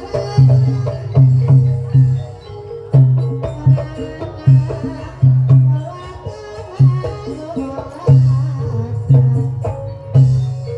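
Traditional Javanese ebeg music, played on drums and gamelan-type instruments: deep drum strokes repeat about every second in a steady groove, under ringing pitched tones.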